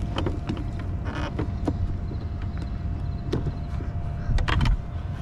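Several short knocks and clicks of hands working at a jet ski's plastic deck, over a steady low rumble.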